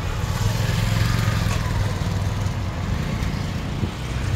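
Road traffic: a motor vehicle's engine running close by, a steady low rumble that is loudest about a second in.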